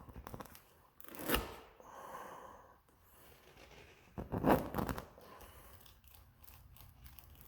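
Tire plug insertion tool being forced into a nail hole in the tire that is too narrow, with rubber scraping and creaking. The noise comes in a short burst about a second in and a longer, louder one around four and a half seconds in.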